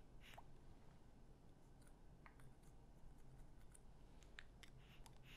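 Near silence, with faint scattered clicks and soft rustles of loose pipe tobacco being pinched by hand and a briar pipe being handled.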